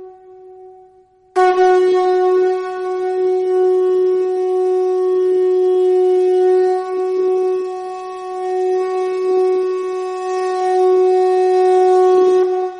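A conch shell (shankh) blown in one long, steady held note that starts abruptly about a second in and stops near the end. Before it, the faint fading tail of an earlier blast can be heard.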